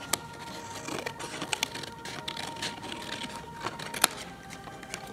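Scissors cutting card, a run of irregular small snips and crackles, the sharpest about four seconds in, over a faint steady tone.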